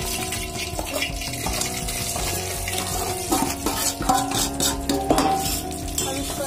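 Semolina and gram flour tipped into hot ghee in a steel pot, with a metal spoon scraping and clinking against the pot as the mixture starts to fry. Background music plays under it.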